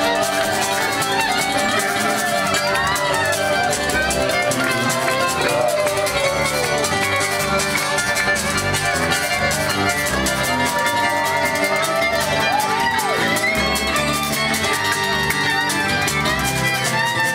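Bluegrass band playing an instrumental break: a fiddle carries the melody with sliding bowed lines over strummed acoustic guitar and a moving bass line.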